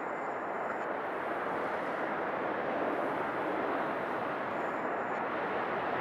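Steady rushing noise of a Boeing 777 freighter's jet engines as it rolls out along the runway after touchdown, growing slightly louder about halfway through.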